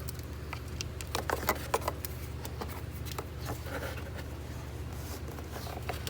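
Hands working among parts in a car's engine bay: scattered small clicks and knocks of plastic and metal, a quick cluster of them about a second in, over a steady low hum.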